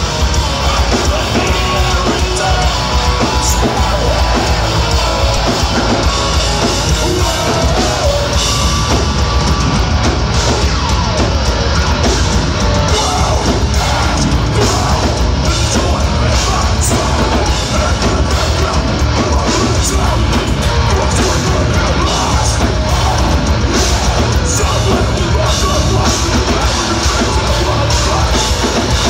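Melodic hardcore band playing live, with distorted guitars, bass and drums under shouted vocals. It is loud and dense, recorded from within the crowd.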